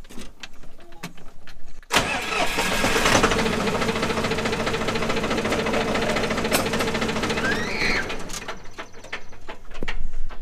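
John Deere 5300 tractor's diesel engine starts suddenly about two seconds in, runs steadily for about six seconds, then drops away. It is run to show the leak at the main hydraulic feed fitting into the valve block.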